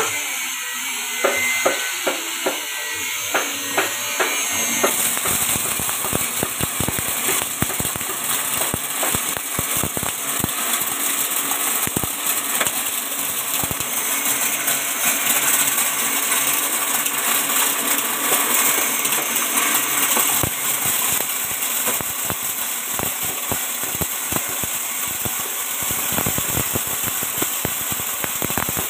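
JG 25 multi-purpose chopper-grinder, belt-driven by an electric motor, milling dry corn kernels: a dense, steady rattling clatter of kernels against the spinning knives and screen. A few sharp ticks stand out in the first few seconds, and the grinding noise thickens about five seconds in.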